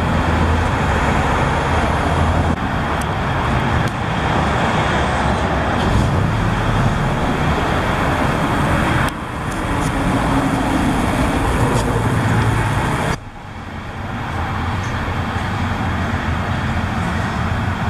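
Street traffic noise: a steady rush of passing cars, cutting off abruptly about nine and again about thirteen seconds in.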